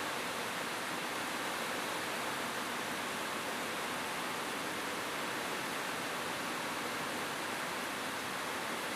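Steady rain falling on a rooftop: an even, unbroken hiss with no single drops standing out.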